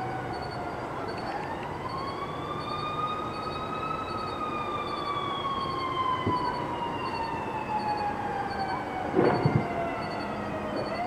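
An emergency vehicle siren in a slow wail, climbing over about three seconds, then sinking slowly over about seven before starting to climb again near the end. About nine seconds in, a quick cluster of sharp pops is the loudest sound.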